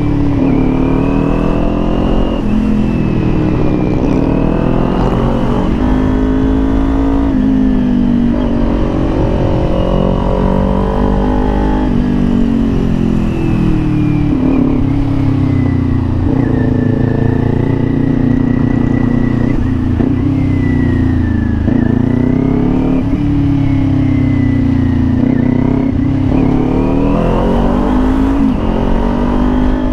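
Kawasaki Ninja 400 parallel-twin engine running under way, its note rising and falling several times as the throttle is opened and eased.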